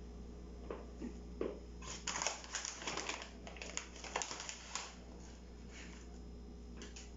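Rustling and light clicks of kitchen things being handled while ingredients go into a bowl: a few soft taps, then a busy stretch of crinkling and clicking in the middle that dies away.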